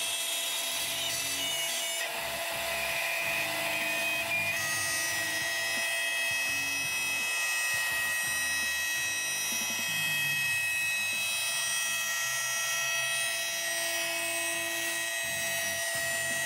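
CNC router spindle running a 1/8-inch bit along a groove in white plastic sheet: a steady high-pitched whine over cutting hiss, the pitch shifting about four and a half seconds in. It is a cut that sounded horrible to the maker, though his feeds and speeds checked out and the bit held.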